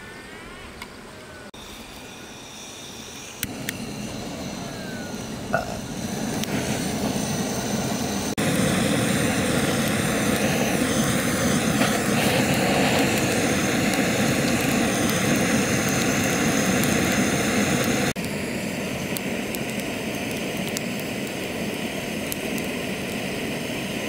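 Butane torch on a gas canister blowing a steady flame into a pile of dry sticks to light them: a loud, even hiss that builds over the first few seconds and drops in level about eighteen seconds in.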